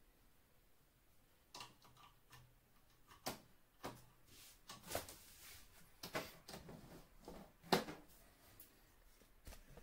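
Light handling noises: a scattered series of short clicks, taps and knocks, about a dozen over several seconds, the sharpest one near the end.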